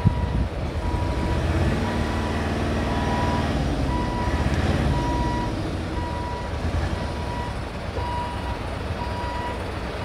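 Heavy truck's engine running under the load of a low-bed trailer, working harder for a few seconds in the middle, while its reversing alarm beeps steadily about once every three-quarters of a second.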